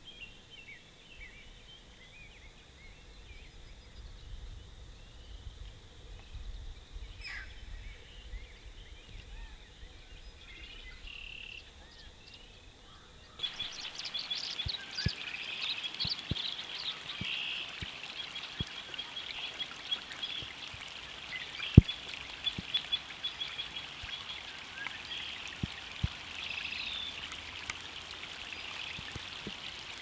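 Outdoor spring wetland ambience: many small birds chirping and trilling. About halfway through, it switches abruptly to a louder stretch with a steady watery wash, a fast repeated trill and scattered sharp clicks.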